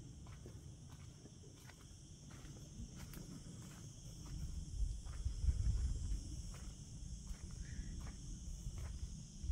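Insects chirring steadily and high-pitched, with soft, scattered steps of someone walking across artificial grass. A low rumble swells up around the middle.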